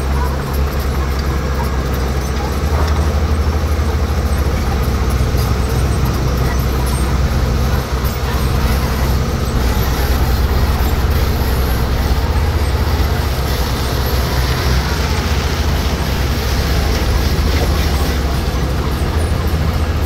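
Diesel engine of heavy earthmoving machinery, a bulldozer or motor grader working gravel, running steadily with a deep, continuous rumble.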